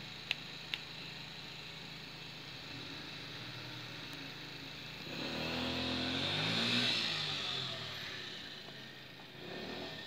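Steady high-pitched cicada buzzing, with a motor vehicle passing about halfway through: its engine note swells and falls in pitch as it goes by. Two sharp clicks come near the start.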